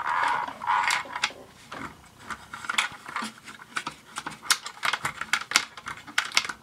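Sharp plastic clicks and taps as a D battery is pushed into a toy's plastic battery holder and the plastic housing is handled, with brief rubbing in the first second. No motor hum comes: the toy's motor does not start.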